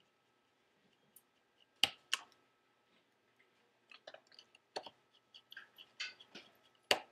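Small screwdriver clicking and scraping on screws while driving the rear screws into a MacBook Pro's case. Sharp clicks come about two seconds in and just before the end, with a run of lighter ticks and scrapes from about four seconds on.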